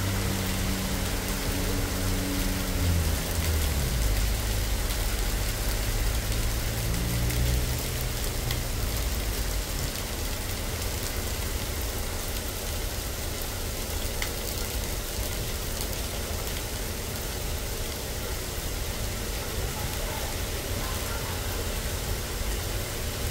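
Steady hiss of rain and traffic on a wet road, with a low rumble underneath. A few low tones fade out in the first few seconds.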